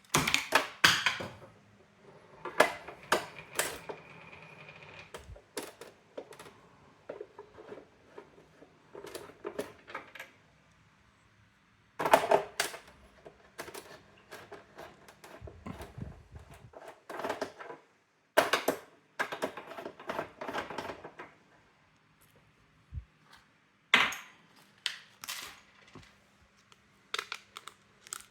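Brother AX-425 electronic typewriter clicking and clattering in irregular bursts of sharp mechanical clicks and rattles, with quiet gaps between them.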